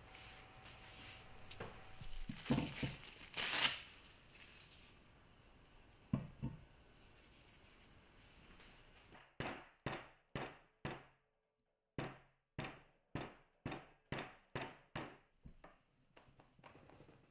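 Plastic cling wrap crinkling and rustling around a lump of chocolate tart dough. About nine seconds in, a run of about a dozen sharp, evenly spaced knocks, roughly two a second with a short break: a marble rolling pin beating the chilled dough flat on a marble slab.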